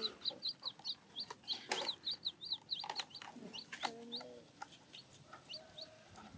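Baby chicks peeping without pause, rapid high peeps several a second, with a few light knocks mixed in.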